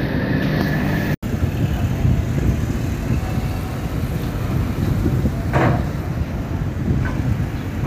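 Low, steady rumble of a large passenger riverboat's engines while it manoeuvres out of port, with churned water along the hull. The sound cuts out for an instant about a second in.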